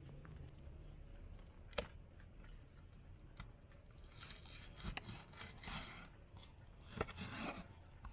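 Large kitchen knife slicing through a raw lamb joint on a wooden cutting board: short, wet, rasping cutting strokes from about halfway, with a few sharp knocks on the board, the first about two seconds in.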